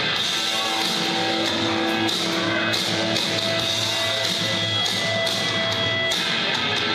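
Rock entrance music with guitar, played steadily over the hall's speakers as wrestlers come out.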